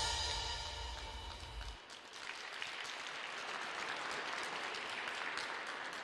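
The last notes of the ice-dance program music fade out over the first two seconds. Audience applause then follows, with individual claps heard through it.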